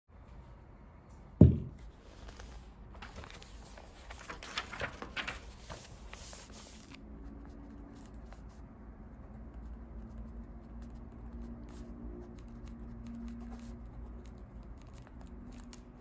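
A single knock on the table about a second and a half in. Then several seconds of paper rustling and handling. After that comes quiet, scratchy pen writing on notebook paper, with faint ticks.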